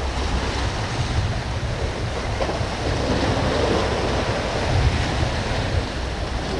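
Sea waves washing and breaking over jetty rocks, a steady surf noise, with wind buffeting the microphone as a low rumble.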